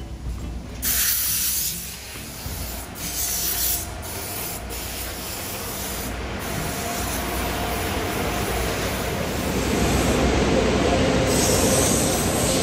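Short hissing bursts of a car-wash hose spraying a car, two longer ones near the start and shorter ones later, over a steady rumbling noise that grows louder in the second half.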